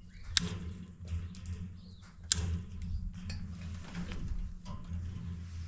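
Sharp, irregular clicks and snaps of wire mesh netting being cut and bent over by hand, over a steady low hum.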